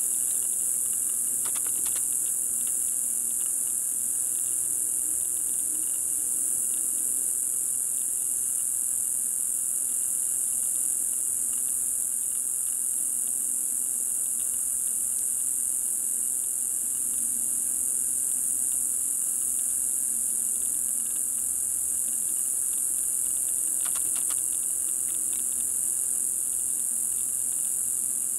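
Dense insect chorus of crickets or similar insects: one steady, high-pitched drone that never breaks, with fainter steady tones lower down.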